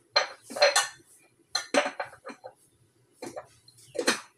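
A spoon knocking and scraping against a cooking pot: a handful of short, irregular clinks spread over a few seconds.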